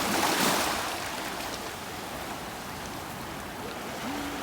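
Steady rushing of water, with a louder surge in the first half second.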